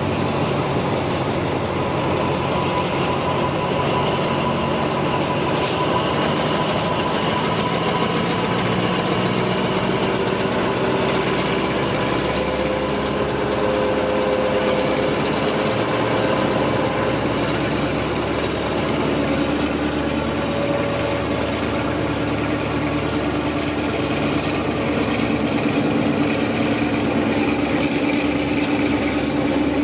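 Alsthom diesel-electric locomotive running steadily, with a high whine that rises slowly in pitch throughout. A single sharp click about six seconds in.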